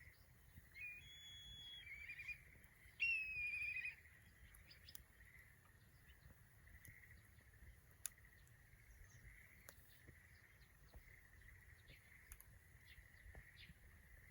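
A songbird sings a few short whistled phrases ending in a trill in the first few seconds. Faint scattered crackles from the small wood fire follow.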